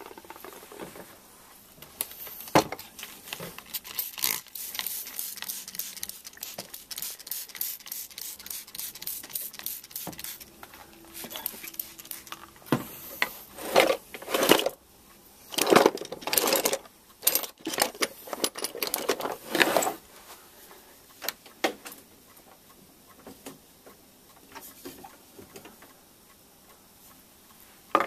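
Small hard objects clicking and clattering as they are handled, a dense run of rapid clicks followed by a few louder knocks, then only scattered faint clicks.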